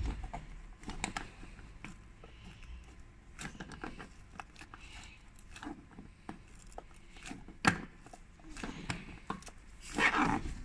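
Scattered clicks and scrapes of hard plastic as hands work the clips out of a Renault Megane 2's plastic wiper cowl panel. There is a sharp click about three quarters of the way through and a louder scraping rustle near the end.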